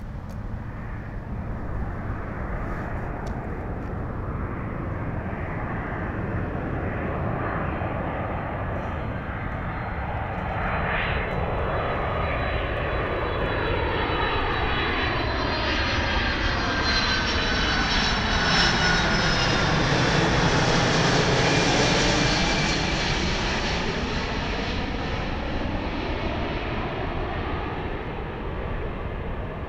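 Japan Airlines Boeing 767 on final approach, gear down, flying low overhead. Its jet engine noise builds to a peak about two-thirds through, with a high whine that drops slightly in pitch as it passes, then fades as it moves away.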